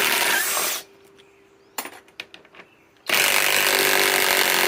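Cordless Flex FX1451 mid-torque impact wrench hammering as it backs out 4-inch lag screws: a burst that stops about a second in, a few faint clicks, then a second long burst starting about three seconds in.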